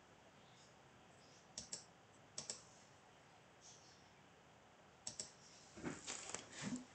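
Near silence with a few faint computer clicks: a quick pair about a second and a half in, single clicks a little later, and a denser run of small clicks and noises in the last two seconds.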